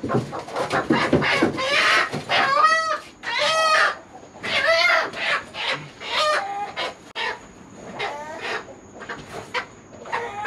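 Chickens squawking: an irregular run of loud, pitched cries, most intense from about two to five seconds in, then sparser and quieter calls.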